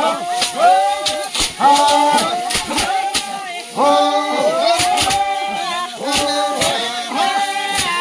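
Music: voices singing a melody of held, stepping notes with no instruments, with sharp clicks or knocks between the phrases.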